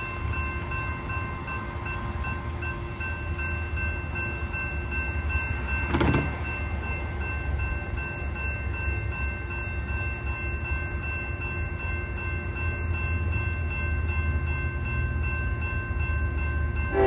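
Railroad crossing warning bell ringing steadily while the crossing signals are activated, over a low rumble. One sharp knock about six seconds in.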